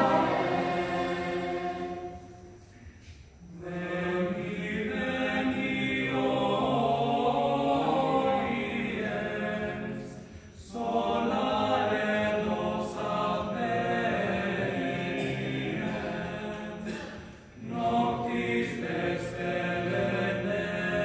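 Lucia choir of children and young people singing in unison phrases of several seconds, with short pauses between phrases about 3, 10 and 17 seconds in.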